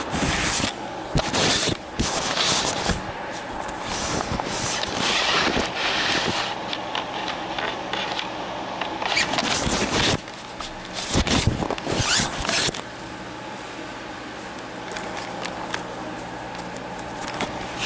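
Cloth rubbing and scraping over the camera's microphone in irregular rustling strokes, which stop about thirteen seconds in, leaving a steady low hum.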